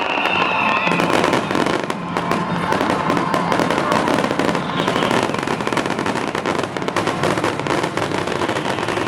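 Fireworks crackling: a dense run of rapid sharp pops, with music behind.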